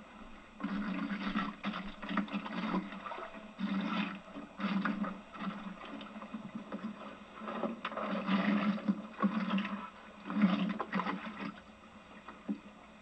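Hand oyster tongs being worked over the side of a boat: irregular bursts of knocking, scraping and splashing that die down near the end.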